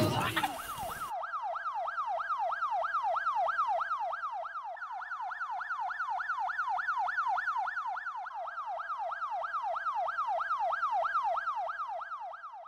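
Siren sound effect: a fast yelp-style wail whose pitch sweeps up and down about three times a second, held steady and fading out at the end. A brief loud noise comes just before it at the very start.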